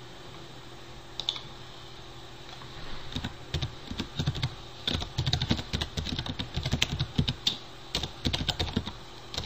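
Typing on a computer keyboard: a single click about a second in, then quick runs of keystrokes from about three seconds in, briefly pausing near the end.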